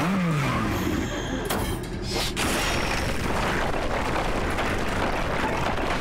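Cartoon sound effects: a vehicle speeds past with its engine pitch falling, then rock rumbles and crashes as a stone arch bridge breaks apart, with two sharp cracks about one and a half and two and a quarter seconds in.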